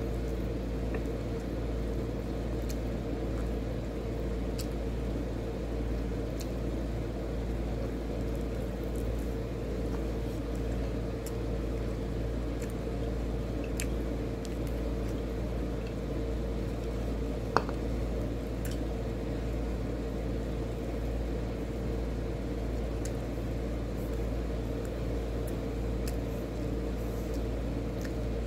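Steady low mechanical hum with a constant tone, such as a fan or appliance motor running, with faint scattered ticks and one sharp click about two-thirds of the way through.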